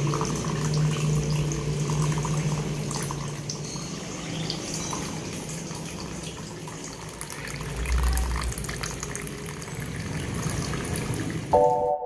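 Water trickling and splashing from a small tabletop waterfall fountain, with a steady low hum in the first few seconds. Music comes in near the end.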